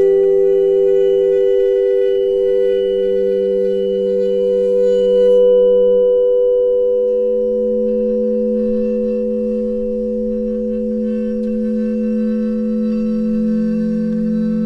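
Ambient electronic-style music score of held, humming drone tones: a steady chord sits above a lower tone that steps up in pitch twice, about a second and a half in and again around six seconds in.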